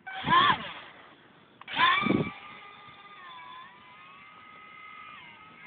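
Motor and propeller of an RC Snoopy Red Baron plane: two short loud bursts of revving, then a steady high whine that wavers a little in pitch.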